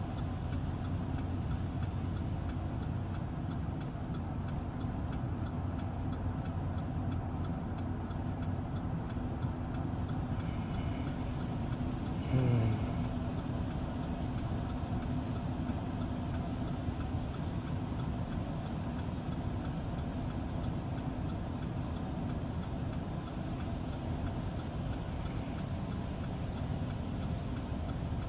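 Steady engine and road noise inside a truck's cab while driving, with one brief louder sound falling in pitch about twelve seconds in.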